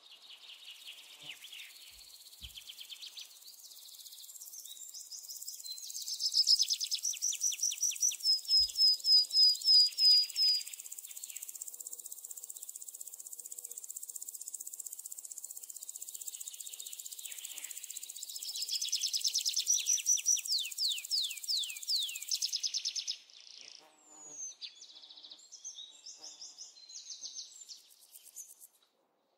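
Birds singing in fast trills of rapid notes and runs of falling whistles, over a steady high buzz of insects. Near the end the buzz drops away, leaving scattered chirps.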